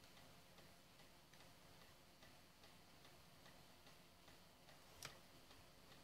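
Near silence: room tone with faint, irregular small ticks and one sharper click about five seconds in.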